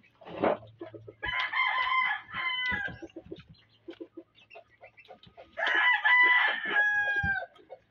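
Rooster crowing twice, each crow a long call lasting close to two seconds, the second falling away at its end.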